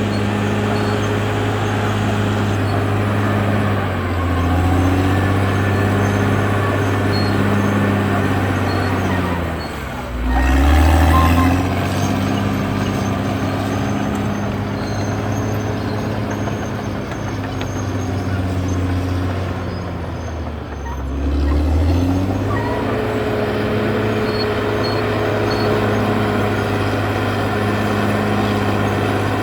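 CAT D6R XL bulldozer's diesel engine running under load. Its pitch sags and climbs back three times, about 4, 10 and 21 seconds in, with the deepest dip and loudest surge near the middle as the engine lugs and then recovers.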